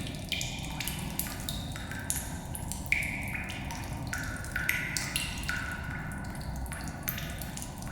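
Water dripping in a cave, irregular drops about two a second, each a short pitched plink that rings and echoes briefly, over a steady low rumble of cave ambience.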